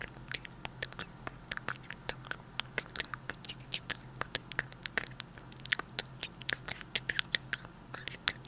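Close-miked ASMR mouth sounds: quick, wet tongue clicks and lip pops ("tk tk", "pk pk") made right into a small clip-on microphone cupped against the mouth. The clicks come several a second, irregular.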